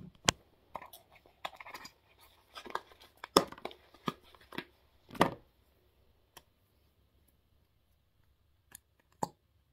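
A small cardboard box for an eyelash serum being opened and handled: rustling and tearing with sharp clicks and taps, busiest in the first five seconds, then a few isolated clicks near the end.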